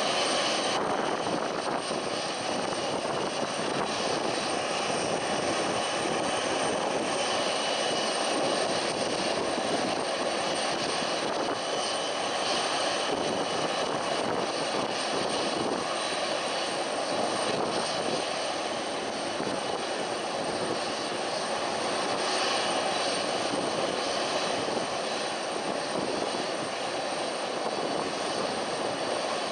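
Boeing 747's four jet engines running at low taxi power as the aircraft taxis: a steady noisy rush with faint high whining tones over it.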